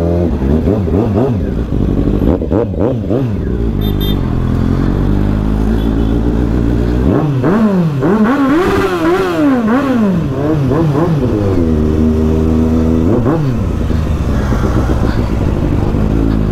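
Motorcycle engine pulling away and accelerating, its pitch climbing and dropping again and again with throttle and gear changes, then running at a steady pitch with one more quick dip near the end as it shifts.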